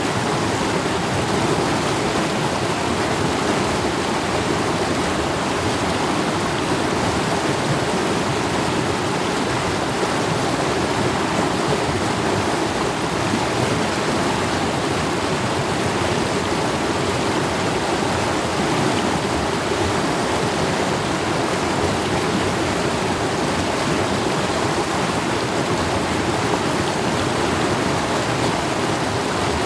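Mountain stream running over rocks: a steady, even rush of water with no changes.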